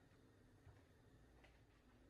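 Near silence: faint kitchen room tone, with a soft low knock about a third of the way in and a faint click near three quarters.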